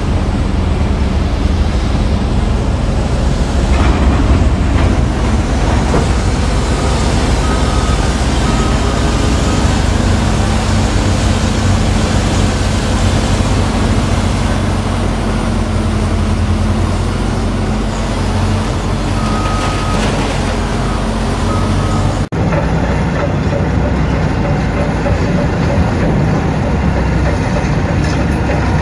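Heavy diesel engines of a Cat 994K wheel loader and a Cat haul truck running together in a steady low rumble, swelling about four seconds in as the loader's bucket load of rock drops into the truck bed. Short high beeps sound in two brief runs. About 22 seconds in the sound cuts abruptly to a different steady heavy-engine rumble.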